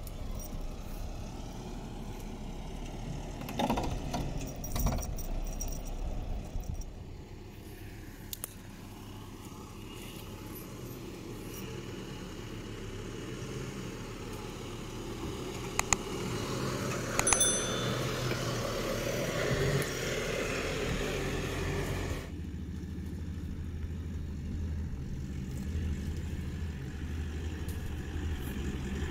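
Four-wheel-drive vehicles driving slowly off-road over sand and rock, with a steady engine note and a few sharp knocks and clicks. The engine sound changes about two-thirds of the way through, as a second vehicle takes over.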